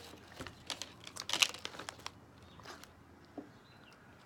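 Plastic bag of roasted sunflower seeds crinkling as it is handled, with a few sharp crackles in the first couple of seconds, then quieter.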